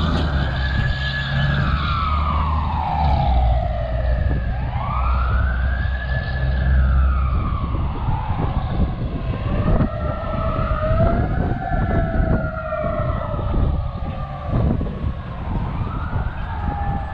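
Fire apparatus sirens wailing on a code 3 emergency response, each cycle rising quickly and falling slowly every few seconds, with a heavy truck engine rumbling under the first seven seconds or so. From about nine seconds in, two sirens wail at once, out of step.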